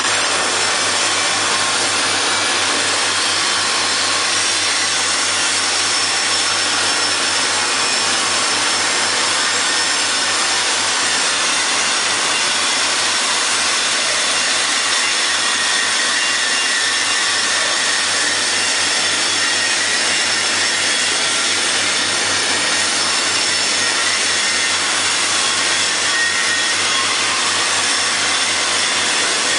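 Boiler membrane wall panel welding machine running: a loud, steady hiss with a few faint steady tones in it.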